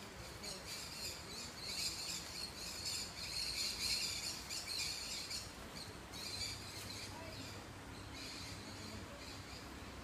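High-pitched, rapidly pulsed chirping from wildlife in the tropical forest, loudest in the first half and breaking off about five and a half seconds in, then returning in shorter spells.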